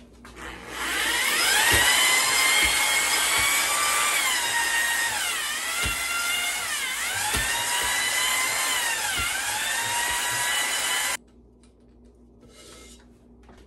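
Electric drill spinning a 200-grit stone cylinder hone in an oiled cylinder bore of a Mercury 2.5-litre 150 hp outboard engine block, the finish-honing stage. The motor whine rises as it spins up about a second in, dips in pitch three times, and cuts off suddenly near the end.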